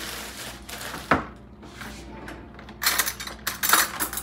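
Plastic bread bag crinkling as it is handled and closed, with a sharp click about a second in and a louder stretch of crackling near the end.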